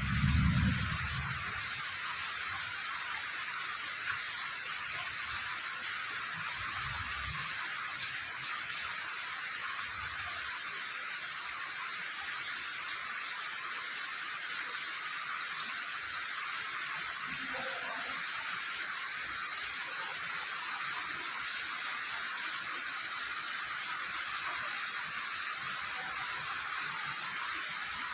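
Steady heavy rain falling, a constant even hiss. A low thud in the first second stands out as the loudest moment, with a few fainter low rumbles after it.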